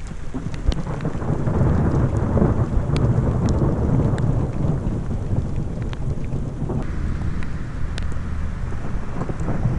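Thunder rumbling in a long low roll, with steady rain and scattered sharp raindrop ticks.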